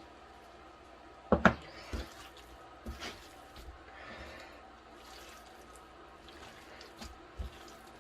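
Kitchen handling sounds: a few sharp knocks and taps of containers or utensils, the loudest about one and a half seconds in, with faint rustling between.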